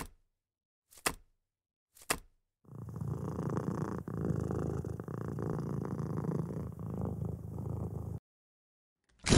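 Three short pops about a second apart, then a domestic cat purring steadily for about five seconds before cutting off suddenly; a loud hit comes at the very end.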